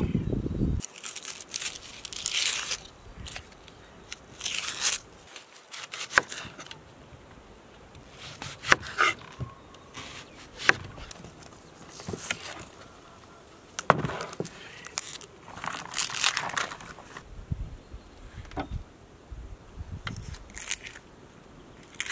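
Dry onion skin being peeled away with a knife: papery crinkling, tearing and blade scraping in short irregular bursts, with a few sharp clicks.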